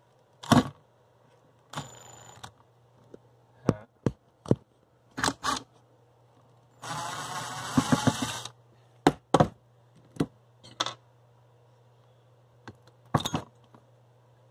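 Screws being backed out of a blower motor's plastic housing and circuit board with a cordless drill-driver. The driver runs briefly near two seconds in, then whirs for about a second and a half in the middle. Sharp clicks and knocks of the bit, screws and parts on the bench come throughout.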